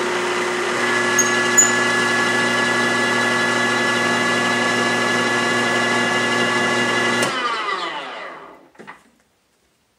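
Drill press motor running steadily as it power-drives a tap down into a cutting-oiled hole in the end of an aluminum extrusion. About seven seconds in, the motor is switched off and winds down with a falling whine, fading out by about nine seconds.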